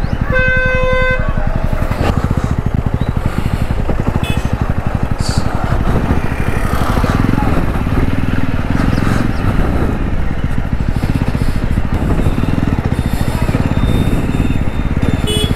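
2024 Jawa 350's 334 cc single-cylinder engine running steadily as the motorcycle is ridden, its exhaust pulsing. A vehicle horn sounds once for about a second near the start.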